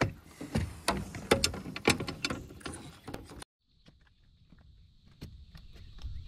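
Rapid, irregular clicks and knocks of rod, reel and boat gear being handled while a crappie is brought in. After a cut about halfway through, a steady high insect drone carries on, with a few faint clicks over it.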